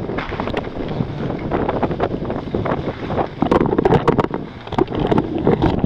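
Strong wind buffeting the microphone, a loud rushing and crackling that rises and falls in gusts, loudest about halfway through and again near the end.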